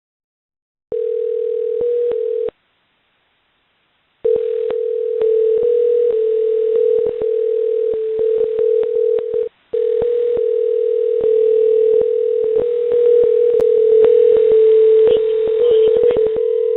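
Steady telephone-line tone heard through phone audio, on for about a second and a half, then from about four seconds in almost without a break, over many sharp line clicks that crowd together near the end.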